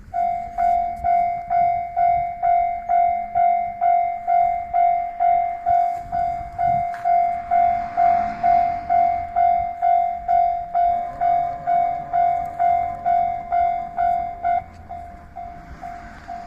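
Japanese railway level crossing warning alarm ringing its repeated electronic 'kan-kan' tone, about two strikes a second. It starts abruptly and becomes noticeably quieter near the end.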